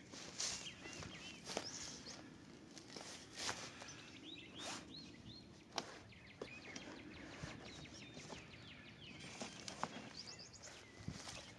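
Faint background of small birds chirping, with scattered light knocks and rustles from a cardboard box being handled.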